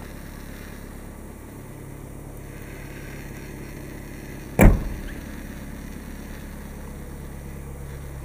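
Trunk lid of a 2017 Volkswagen Passat sedan shutting with a single solid thud about four and a half seconds in, over a steady low hum.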